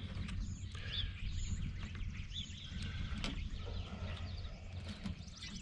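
Faint bird chirps over a steady low hum, with a few light clicks of small parts being handled.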